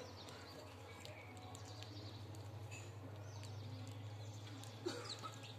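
House sparrows chirping faintly and now and then, over a steady low hum, with one sharp tap about five seconds in.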